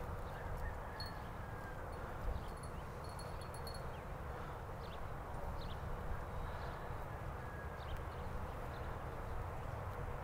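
A horse's hoofbeats at a jog on the soft sand footing of an arena, heard faintly under a steady low rumble.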